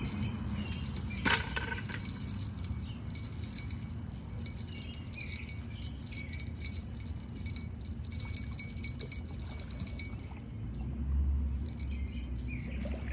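Light metallic clicking and jingling from a fishing rod and spinning reel as a big carp is played and reeled in, with one sharper click about a second in.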